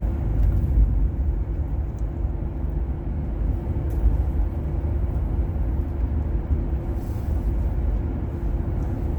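Steady low rumble of a vehicle driving, engine and road noise with a faint steady hum.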